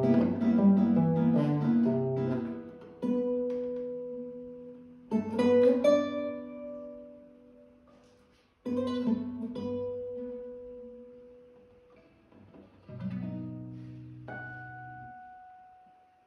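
Classical nylon-string guitar played solo: a quick run of fingerpicked notes, then a few single chords struck and left to ring and die away, with gaps between them.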